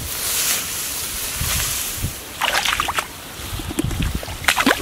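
Hands sloshing and splashing in shallow muddy water, with clusters of sharper splashes about halfway through and again near the end.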